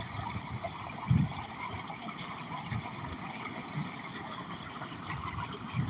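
Shallow stream water running steadily over a small waterfall of stacked rocks, with a low thump about a second in.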